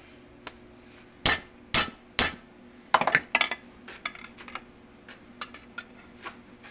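Three sharp metal-on-metal strikes about half a second apart, then a quick run of clanks and lighter clinks, steel on steel at a bench vise, as a bent steel piece clamped in the vise is worked to straighten it.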